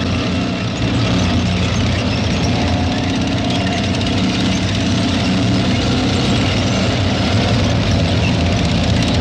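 Heavy engines of tracked self-propelled guns running steadily, a dense, unbroken low engine noise.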